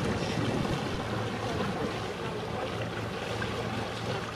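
Motor boat engine running steadily with a low hum as the boat passes, over the wash of water.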